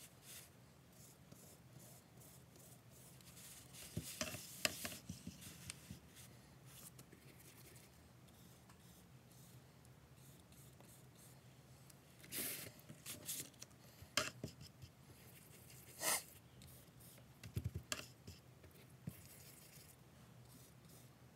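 Paintbrush bristles brushing and scraping tempera paint across paper, in faint scattered scratchy strokes with quiet gaps between.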